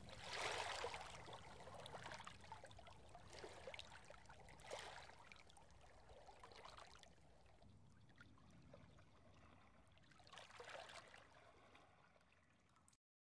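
Faint flowing-water sound, a noisy rush that swells and ebbs in waves and slowly fades, then cuts off to silence near the end.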